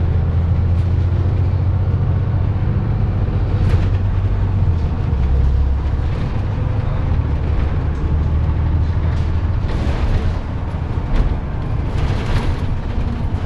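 Dennis Trident double-decker bus engine running as the bus drives along, heard from on board: a loud, deep drone whose note shifts a few times, dipping about five seconds in and easing off near ten seconds.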